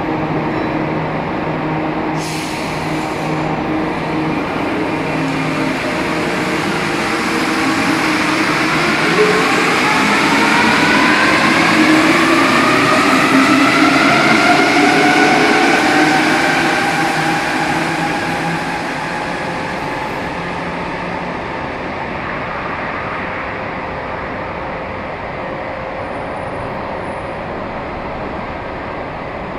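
Alstom NS-16 rubber-tyred metro train pulling away: after a brief hiss of air about two seconds in, its traction motors give a whine that rises in pitch as the train accelerates. The sound grows louder, then fades to a steady rumble as the train moves off.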